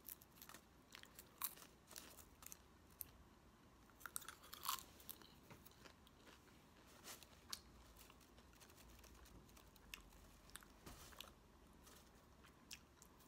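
Faint, irregular crunching of a person chewing popcorn, a little louder about four seconds in.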